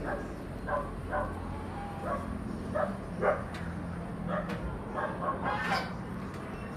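A string of short, pitched animal calls, one or two a second, over a steady low hum; the loudest comes about three seconds in.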